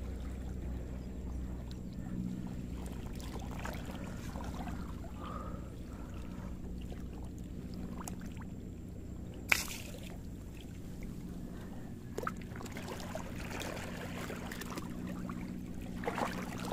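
Shallow seawater lapping and trickling among rocks over a steady low hum, with a sharp click about nine and a half seconds in and a couple of fainter clicks later.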